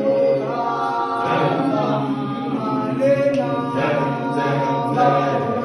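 A group of teenage voices singing a cappella in harmony, holding long notes together.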